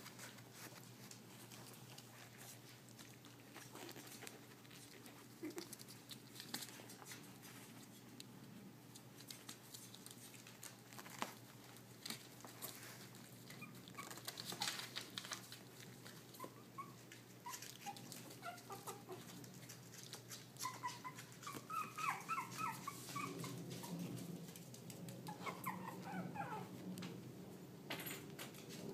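Young puppies squeaking and whimpering in many short high-pitched calls, most of them in the second half, with light scuffs and clicks of play earlier on.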